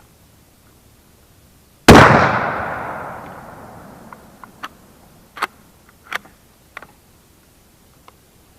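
A single shot from a TOZ-106 bolt-action 20-gauge shotgun, a sharp bang followed by a long echo dying away over about two seconds. Several light clicks and clinks follow a few seconds later.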